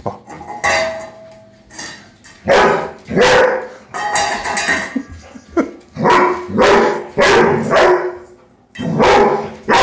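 Young Airedale terrier barking about ten times in irregular bursts at the food bowl that holds his ball, which he won't take from it.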